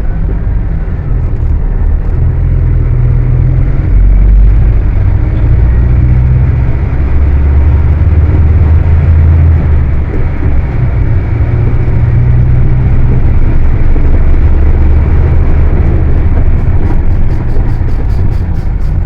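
Volkswagen 17-230 OD bus's diesel engine running loud and hard with a heavy low rumble, stepping up about four seconds in. A quick regular ticking starts near the end.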